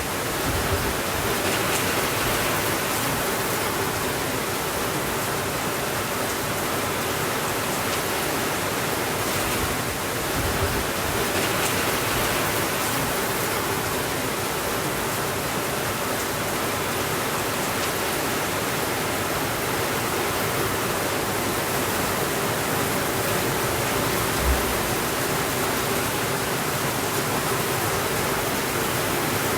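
Steady rainfall, a dense even hiss, with a few soft low thumps, the clearest about three-quarters of the way through.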